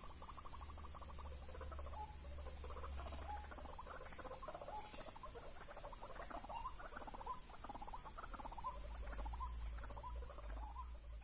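White-breasted waterhens (ruak-ruak) calling: a dense, continuous run of short repeated notes, over a steady high hiss. It fades near the end.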